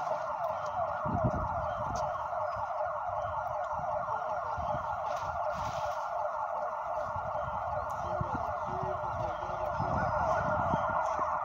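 A siren wails without a break, a fast, repeating sweep in pitch at a steady level.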